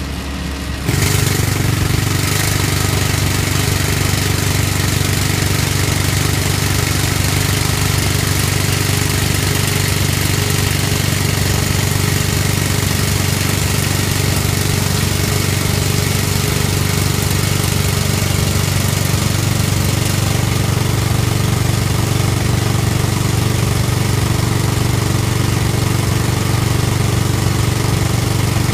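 Excavator-mounted hydraulic rock drill (Word Rock Drills EX 120) drilling into rock, its hammering mixed with the steady run of the excavator's engine and hydraulics. It comes up to full power about a second in and holds steady.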